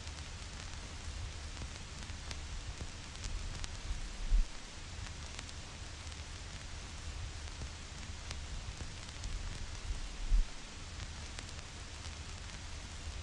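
Vinyl record surface noise: a stylus riding the groove gives a steady hiss with scattered crackles and pops, laid over white noise. Two low thumps come about six seconds apart, a little after four seconds and again about ten seconds in.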